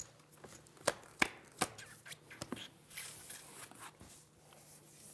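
A few sharp clicks and taps at a poker table, then the soft slide and tap of playing cards being dealt onto the felt for the flop.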